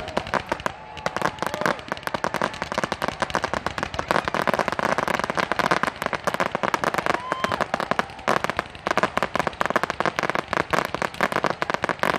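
Fireworks finale: a dense, rapid run of overlapping pops and bangs from crackling shells and fountains, with brief lulls about a second in and around eight seconds.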